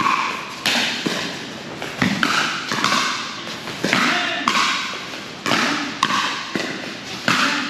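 Pickleball paddles striking a hard plastic pickleball in a rally, a string of sharp hollow hits roughly every half second to a second.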